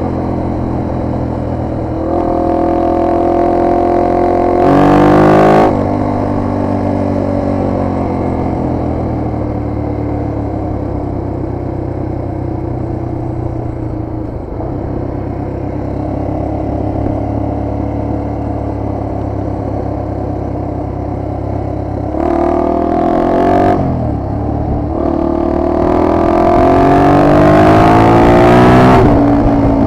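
Single-cylinder four-stroke engine of a 1998 Honda XR250R trail bike under way on the road. It revs up with a loud pull a few seconds in, runs steadily at cruising speed through the middle, then gives a short burst and climbs in revs again near the end.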